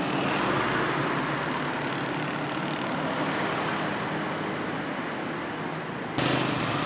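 City street traffic: engines of cars and a bus running with tyre noise, under a steady low engine drone. Near the end the sound changes abruptly and becomes louder and brighter.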